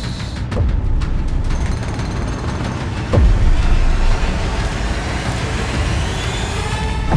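Cinematic sound design for a power-tool advert: a deep steady rumble with a heavy impact hit about three seconds in, then several tones rising in pitch together over the last two seconds.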